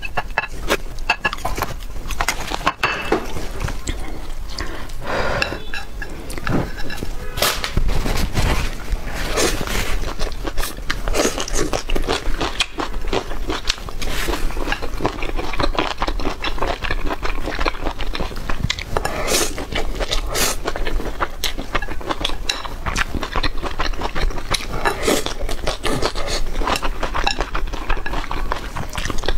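People eating braised pork belly with rice: dense, irregular chewing and smacking, with utensils clinking and scraping against bowls and dishes.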